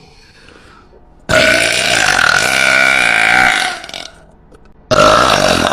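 A woman's very loud, long burp lasting over two seconds, followed about a second later by a second, shorter burp.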